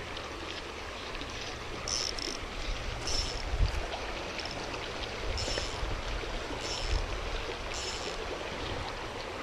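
Mountain stream water running steadily. About five short high chirps sound at irregular intervals over it.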